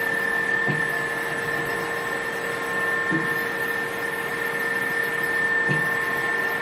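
FANUC Robodrill Alpha T14iD CNC drill-tap machining center running with a steady high whine over a lower hum, and a faint short sound about every two and a half seconds.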